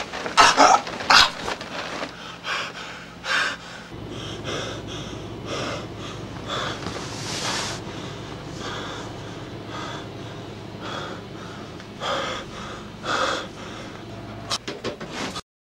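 A man gasping and wheezing for breath as if choking: a string of harsh, irregular breaths, loudest about a second in and again near the end, then a sudden cut-off.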